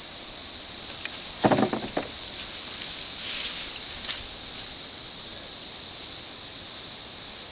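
Steady insect chorus, a continuous high buzz in two bands. A brief louder noise cuts in about one and a half seconds in, and a short hiss about three seconds in.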